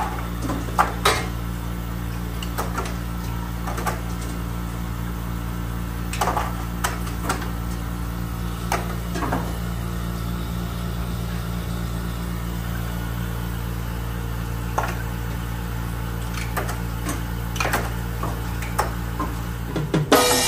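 Hoshizaki ice machine running with a steady mechanical hum, back in operation after its control board was replaced. Occasional light clicks and knocks sound over the hum.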